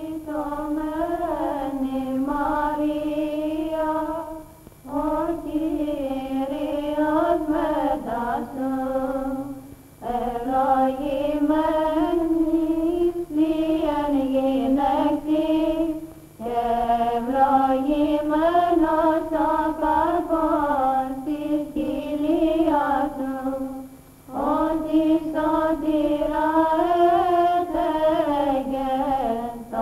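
Women's voices chanting a slow Orthodox (Byzantine) hymn on one melodic line, sung in phrases several seconds long with short breaks between them.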